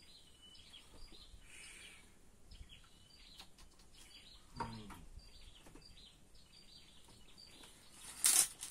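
Faint outdoor birdsong: short high chirps repeating about twice a second, with a brief falling call about halfway through. A short loud hiss comes near the end.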